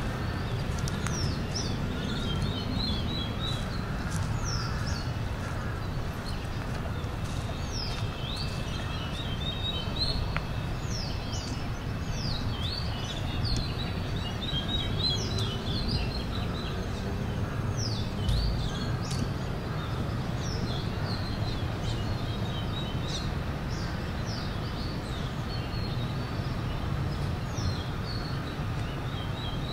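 Many small birds chirping and twittering in short, overlapping, downward-sweeping calls over a steady low rumble of city traffic.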